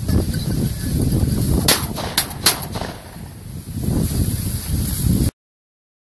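Gusty wind buffeting the microphone while walking through dry milo, with three quick sharp cracks about two seconds in. The sound cuts off abruptly near the end.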